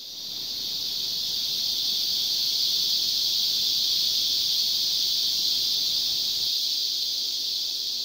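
Male Zammara cicada held in the hand, buzzing steadily and high-pitched by vibrating its tymbals. It is a disturbance buzz at a perceived predator. The buzz swells in over the first second.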